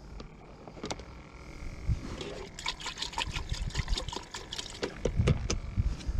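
Water splashing and sloshing inside a plastic aerated bait bucket as a hand works in it, busiest from about two seconds in, with a few dull knocks near the end.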